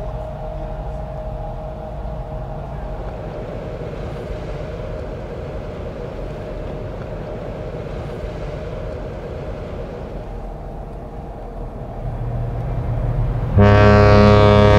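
Steady low rumble, then near the end AIDAnova's ship's horn starts sounding: one loud, deep, sustained blast with many overtones that holds on without a break.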